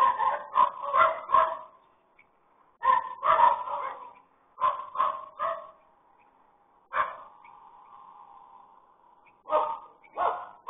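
A dog barking in bursts of several barks with short pauses between, heard through a security camera's narrow-range microphone.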